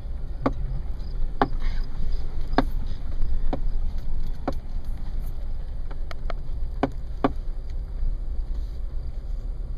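Off-road vehicle driving slowly along a rutted dirt trail, heard from inside the cab: a steady low rumble with sharp knocks and rattles about once a second.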